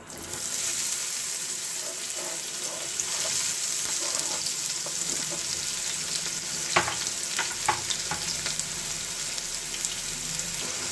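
Chopped onions dropped into hot oil in a frying pan, sizzling steadily from the moment they land. A few light clicks of a utensil against the pan come about seven to eight seconds in.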